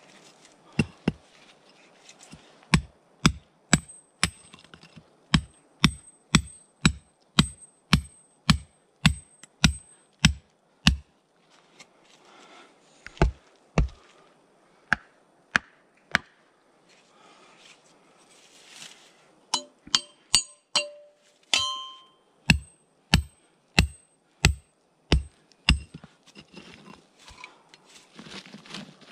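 Repeated blows of a hand digging tool into the ground, about two a second, pausing twice. One blow a little past the middle rings out with a metallic clang.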